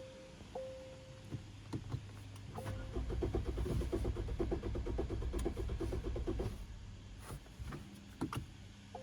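A car's starter motor cranks the engine in a rapid rhythmic chug for about four seconds, then stops without a steady idle. The jump starter powering it is low on charge. A steady dashboard warning chime sounds in the first second, and a few clicks follow near the end.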